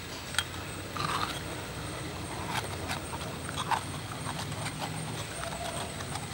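Scattered metallic clicks, taps and scrapes as a steel sev press (murukku press) cylinder is filled with dough and its threaded screw-plunger lid is fitted on, over a steady low background hum.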